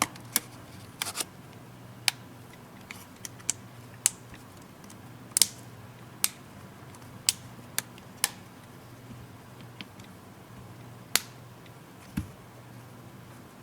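Irregular sharp plastic clicks and snaps, about a dozen, from a Samsung Galaxy Tab 3 tablet's plastic mid-frame being pressed back into place, with a faint steady low hum underneath.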